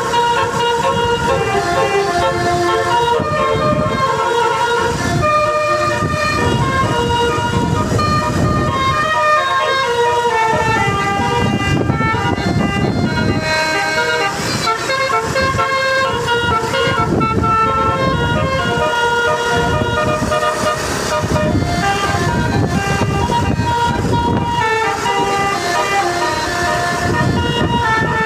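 Basuri musical bus horn playing a melody, one held note after another in changing pitches, over a low rumble.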